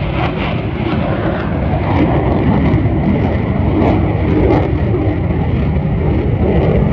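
Loud, steady low rumble of a departing F-35A's single turbofan jet engine as the fighter climbs away, with a rough crackle in the roar.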